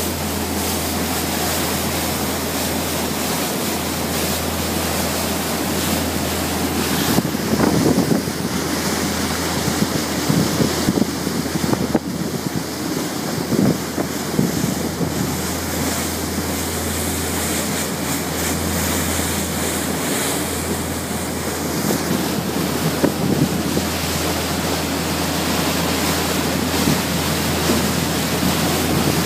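Wind buffeting the microphone and the rush of the wake along the hull of a boat under way, over a steady low drone from its engines. The wind gusts harder for several seconds around the middle.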